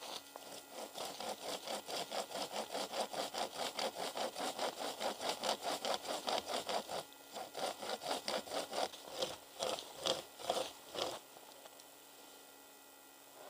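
A hand camping saw cutting into the trunk of a standing dead tree: a fast, even run of strokes, then slower, separate strokes that stop about eleven seconds in.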